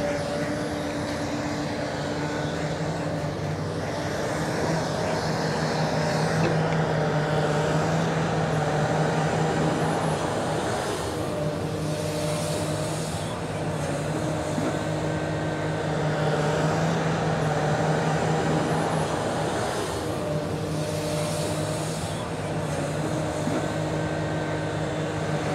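Large Komatsu excavator's diesel engine working as it digs and loads sand into an articulated dump truck. Its low hum grows stronger and eases every few seconds with the load of each dig and swing.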